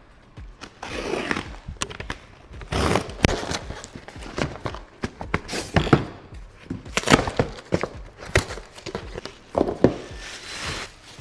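A cardboard shipping box being opened and its crumpled packing paper pulled out: rustling and crinkling in several swells, with scattered knocks and thunks as the box is handled on a glass counter.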